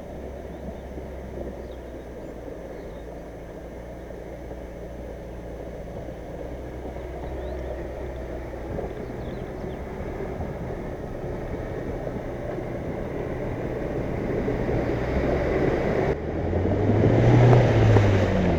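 Niva off-road SUV's engine running as it drives, growing steadily louder. About two seconds before the end it gets noticeably louder, with the engine pitch rising and falling.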